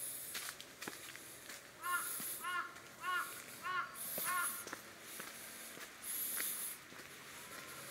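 A bird giving five harsh, cawing calls in a row, a little over half a second apart, starting about two seconds in. Footsteps on a dirt path run underneath.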